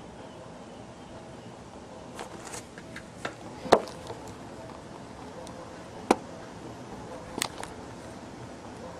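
A few sharp, short knocks or clicks at irregular intervals, the loudest a little under four seconds in, over a faint steady hum.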